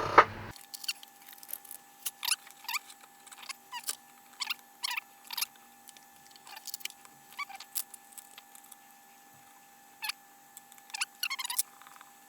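Scattered light clicks, clinks and short squeaks of small metal tool parts being handled as a dial indicator and its stand are set up against a small lathe. A faint steady hum runs underneath.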